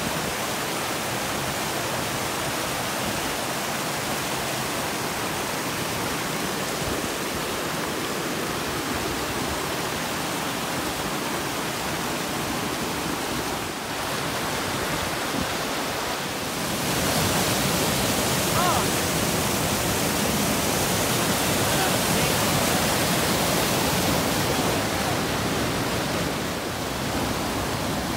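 Mountain creek rushing and cascading over rocks, a steady hiss of white water that grows louder a little past halfway through.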